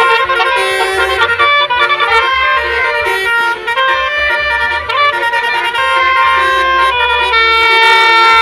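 Telolet multi-tone horn playing a melody: several held, overlapping horn tones that step from note to note, loud throughout.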